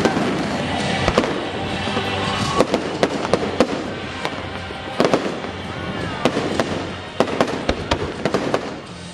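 Fireworks display: aerial shells bursting with a run of sharp bangs and crackling, thinning out toward the end.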